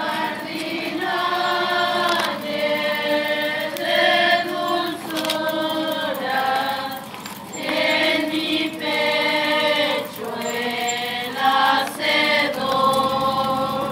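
A group of voices singing a slow hymn, with long held notes in phrases broken by short pauses.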